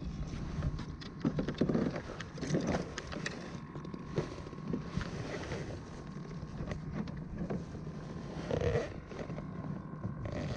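Wind rumbling on the microphone aboard a kayak, with scattered small knocks and clicks as fishing rod and line are handled.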